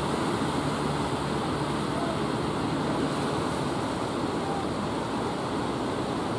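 Steady rush of surf and breaking waves at a river mouth, with wind on the microphone. A low engine drone from a motor fishing boat fades out in the first second or so.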